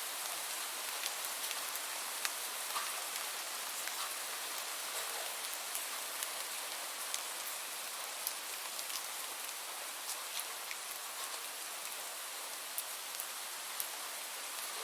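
Steady rain falling, an even hiss with scattered sharp ticks of individual drops striking a surface.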